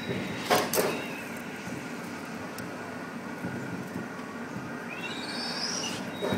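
Steady rushing noise of typhoon wind and rain, with a couple of knocks in the first second and a few short rising whistles about five seconds in.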